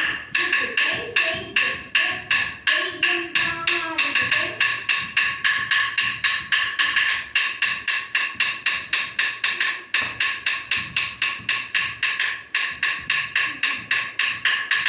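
A fast, steady percussion beat for Indian classical dance practice: sharp, ringing strokes about four or five a second. A wavering melody, sung or played, runs over the first four seconds or so.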